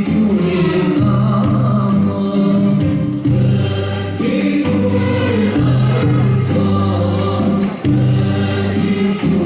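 Arabic muwashshah song with group voices singing long held notes over instrumental accompaniment.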